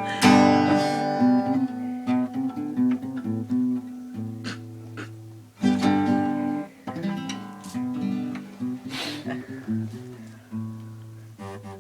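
Acoustic guitar played live, strummed chords ringing out with single picked notes between them.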